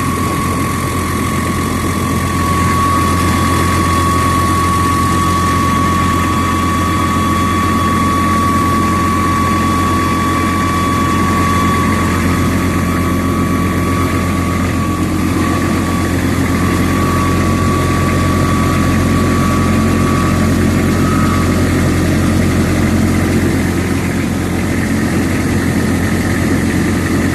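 DAF 95 XF truck engine running steadily, with a thin high-pitched whine over the low engine hum. The whine weakens and breaks up about halfway through. It is the unexplained extra noise the owner is trying to identify.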